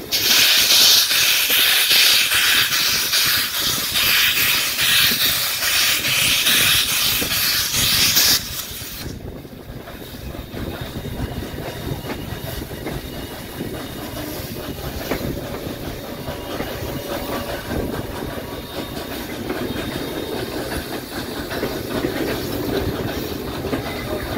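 Loud hiss of steam from Baldwin 2-6-6-2 articulated steam locomotive 1309, heard close from the open car behind it. It cuts off suddenly about eight seconds in, leaving the quieter rumble of the train rolling on.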